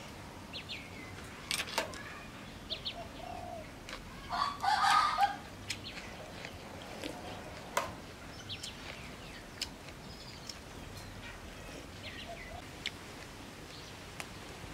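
A chicken calls once, loudly, for about a second, about four seconds in. Around it are short high bird chirps and sharp clinks of a spoon and chopsticks against a soup bowl.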